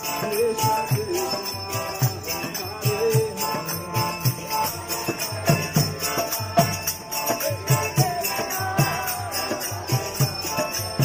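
Devotional kirtan chanted by a group in a street procession: small hand cymbals (karatals) ringing in a steady rhythm, drum beats, and voices singing together.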